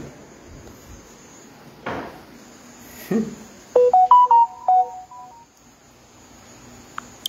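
A short electronic jingle: a quick run of about ten clean beeping notes at different pitches, lasting about a second and a half, starting about four seconds in. A couple of soft knocks come before it.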